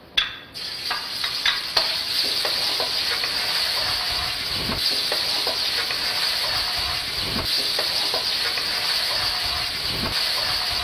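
Pork strips coated in a cornstarch marinade sizzling steadily in a pan of hot oil as they are oil-blanched, the sizzle starting suddenly about half a second in. A wooden spatula stirring them knocks and scrapes against the pan now and then.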